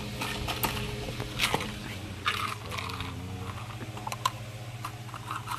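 Rummaging for pushpins: scattered light clicks and short rustles of small objects being handled, over a low steady hum.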